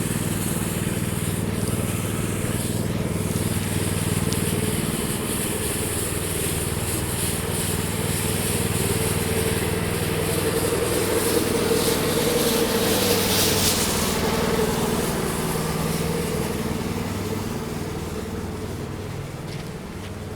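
A motor engine running close by with a steady, droning hum, plus a louder hissing rush about twelve seconds in that lasts a couple of seconds. The engine gradually fades in the last few seconds.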